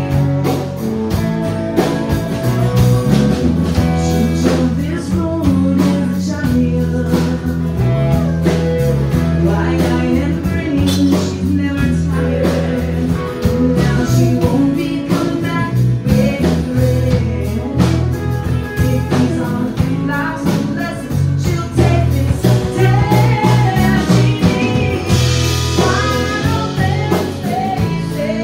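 Live country band playing: a woman singing lead over strummed acoustic guitar, electric guitar, bass and drums, with a cymbal wash swelling near the end.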